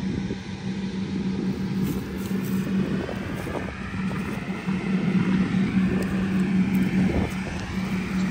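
A group of four Case IH Steiger 715 four-wheel-drive tractors driving across a field, their diesel engines running with a steady hum. Wind buffets the microphone.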